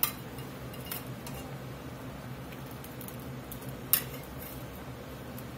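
Metal spatula clinking against a cast-iron skillet as beef patties are set into gravy: a few sharp clinks, the loudest about four seconds in, over a steady low hum.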